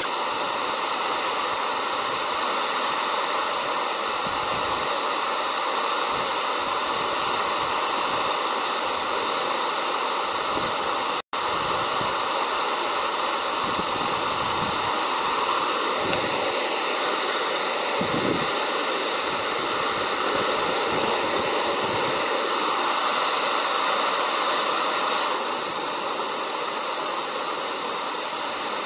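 Steady rushing and splashing of a thin waterfall pouring onto rock and into a pool, with a momentary gap about eleven seconds in.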